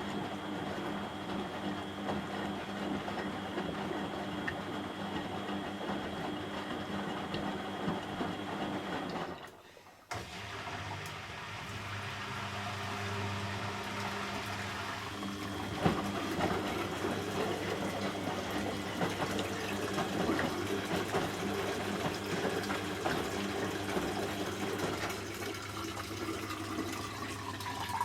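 Beko front-loading washing machine taking in water: a steady rush of water through the inlet valve and detergent drawer. The flow stops briefly about ten seconds in, then resumes with a slightly different sound.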